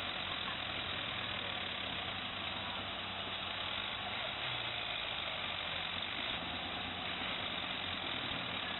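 Tractor diesel engines running steadily at a low idle, with no revving.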